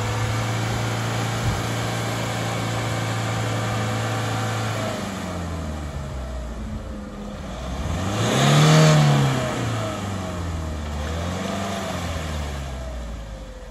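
A 4x4's engine running steadily, then revved several times, its pitch rising and falling in surges. The loudest, highest rev comes about 9 s in.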